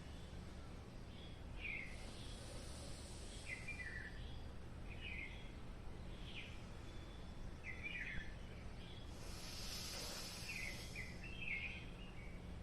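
Small birds chirping in short repeated calls over a steady low hum. Twice there is a soft, longer hiss of breath drawn through the nose during alternate-nostril breathing: once about two seconds in and again about nine seconds in.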